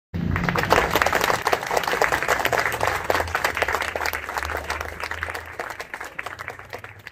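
A group of people clapping and applauding, dying away toward the end.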